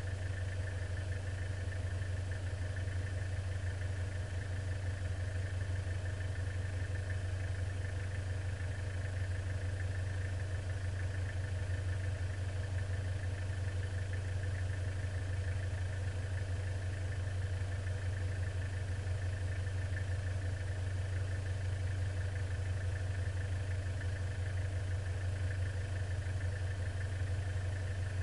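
Off-road vehicle's engine idling steadily while the vehicle stands still, heard from inside the cabin as an even low hum.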